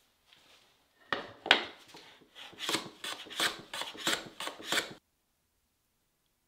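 A hand tool worked back and forth along the edge of a wooden board, making a quick series of scraping strokes, about three a second, that starts about a second in and stops abruptly at about five seconds.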